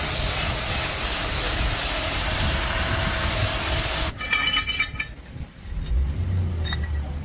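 A power tool runs with a steady hiss and cuts off suddenly about four seconds in. It is followed by a few light metallic clinks and a low rumble near the end.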